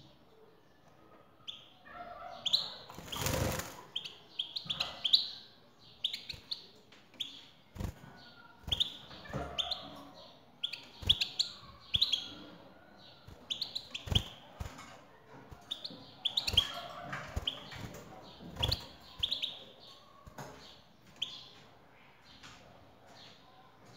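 European goldfinch twittering in short clusters of high chirping notes, mixed with wing flutters and sharp knocks of a bird moving about on the wire floor of its cage.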